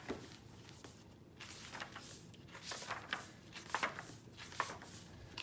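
Pages of a hardcover book being turned by hand: a series of soft paper rustles and flicks, about half a dozen spread out.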